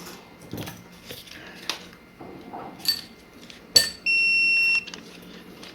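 Light handling clicks, then a sharp click and a single long high electronic beep lasting a little under a second from the drone equipment under repair.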